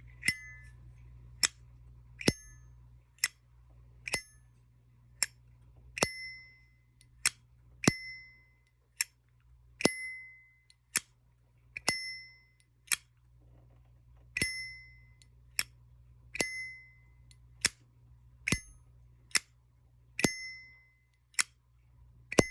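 Zippo lighter lids being flicked open and snapped shut over and over, about one a second: sharp metal clicks, most followed by a short ringing ping from the lid and hinge. The owner says the lighter still needs a little more maintenance.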